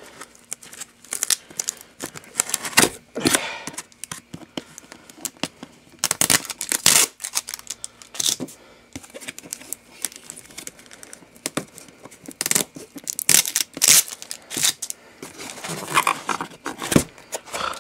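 Cardboard box and its packaging being handled and worked open by hand: many irregular short rips, scrapes and crinkles.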